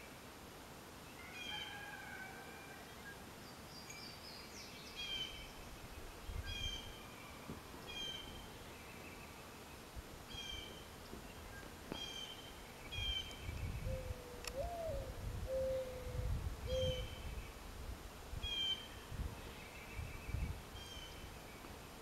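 Mourning dove's perch coo, heard once about two-thirds of the way in: a slurred note that rises and falls, then two short coos, the two-note ending variant. Another bird repeats short high chirps about every second or so, and low rumbles come and go.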